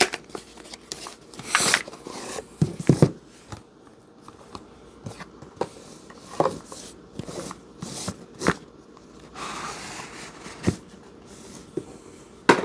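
Hands handling a knife package's paper contents and stickers: scattered light taps, clicks and brief rustles, with a longer soft rustle about ten seconds in.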